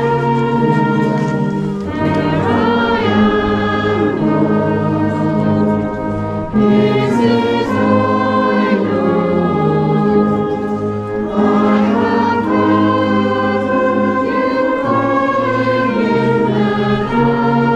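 A congregation singing a hymn together, held notes changing every second or two, accompanied by a town brass band.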